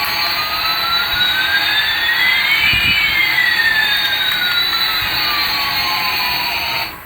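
Jet-engine sound, a steady hiss with one tone gliding up and another gliding down, crossing about three seconds in; it cuts off abruptly at the end.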